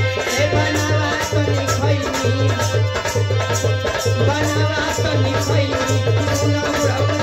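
Live Indian folk music: a man singing into a microphone over a steady hand-drum rhythm, with held instrumental notes underneath.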